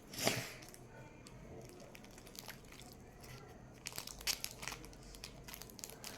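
Plastic crinkling and rustling as sponge filling is pushed into a squishy toy's casing: one loud rustle near the start, then a run of small sharp crackles in the last couple of seconds.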